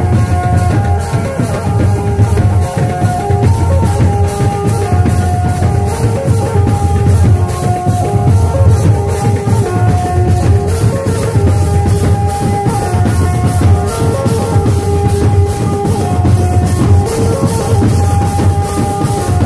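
Live band-party music: an Indian banjo playing a melody over fast, loud, steady drumming on tasa and nagada drums.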